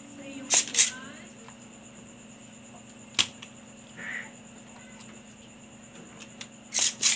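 Sharp clicks and taps from hands handling multimeter test probes at a TV circuit board, over a faint steady hum. There is a quick pair just under a second in, a single click a little after three seconds, and another pair near the end.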